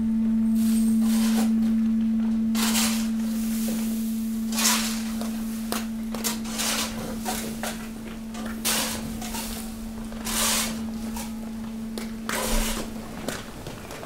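Hydraulic waste compactor press pushing into mixed waste and spruce branches. A steady hydraulic hum, strongest at first, runs under repeated crackling and snapping as branches, leaves and plastic are crushed, and the hum stops near the end.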